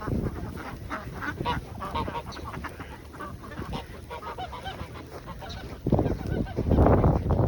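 Farm poultry calling, a quick run of short repeated calls, then a loud gust of wind on the microphone near the end.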